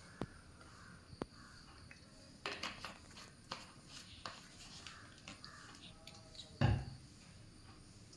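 Quiet room tone with a few scattered knocks and clatters, the loudest and deepest one about six and a half seconds in.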